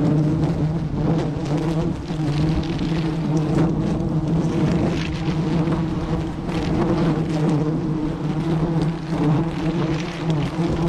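Steady buzzing hum of a dense wild honeybee colony on its exposed comb, a low, even drone with a few light clicks scattered through it.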